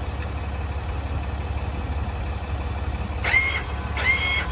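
Service-truck crane's motor jogged twice, each time a short whine that spins up quickly and holds for under half a second, about three and four seconds in. An engine idles steadily underneath.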